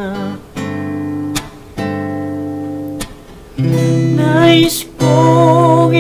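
Acoustic guitar strumming sustained chords, changing chord about once a second. About three and a half seconds in, the guitar gets louder and a man's singing voice comes in over it.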